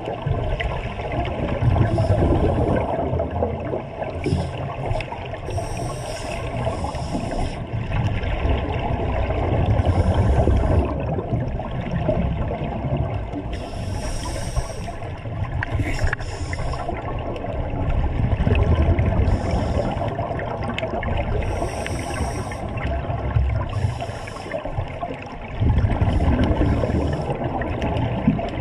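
Scuba regulators heard underwater: a short hiss as a breath is drawn through a regulator, and a muffled low rumble of exhaled bubbles. These repeat in a slow cycle every several seconds.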